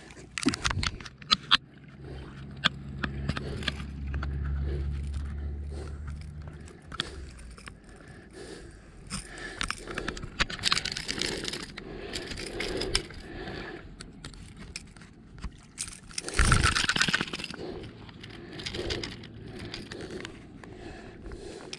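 Metal clicks and scrapes of fishing pliers and a lure's treble hooks as the hooks are worked out of a leerfish's mouth. There are several sharp clicks in the first two seconds, a low rumble for a few seconds after, and one loud scraping rustle about 16 seconds in.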